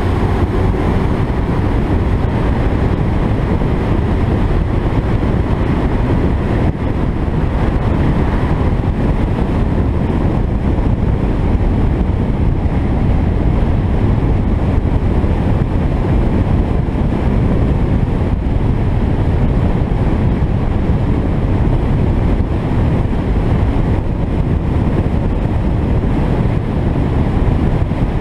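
Alfa Romeo 33 driving at a steady pace: a steady rush of tyre and wind noise over the engine, with wind buffeting the microphone.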